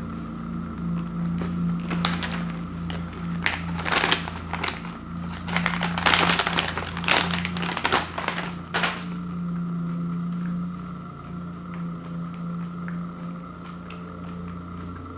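Plastic candy bag crinkling and crackling as it is handled, loudest about two-thirds of the way in, then stopping. A steady low hum runs underneath.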